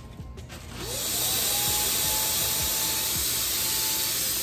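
Handheld electric paint sprayer switched on about a second in: its motor whine rises quickly, then holds steady under a loud, even hiss of spraying air and paint.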